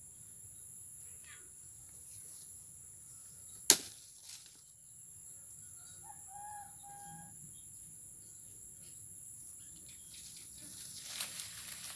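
Steady high-pitched chorus of insects, with one sharp click a little under four seconds in and a short whistled note about halfway through.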